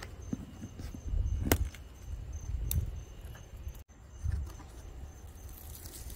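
A large cardboard shipping box being cut and opened by hand: a pocket knife slits the packing tape, and the cardboard flaps scrape and rustle, with a few sharp clicks and taps.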